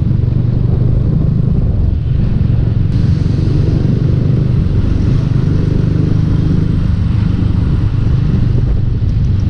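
Motorcycle engine running steadily while riding, with low road rumble.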